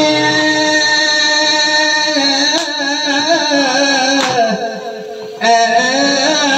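Seudati singer chanting an Acehnese vocal line into a microphone, unaccompanied by instruments: a long held note, then a wavering, ornamented melody that drops away for about a second near the end before picking up again. Two sharp clicks cut in midway.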